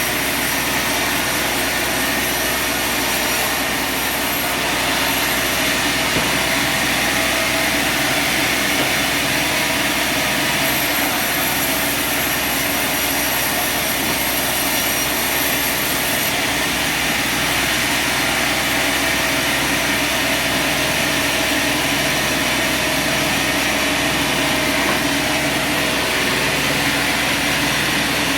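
Sawmill machinery running steadily: a continuous, even mechanical noise that neither stops nor changes much.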